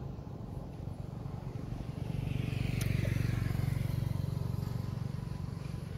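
Low rumble of a passing motor vehicle, swelling about two seconds in and fading again after about five seconds, with a single sharp click near the middle.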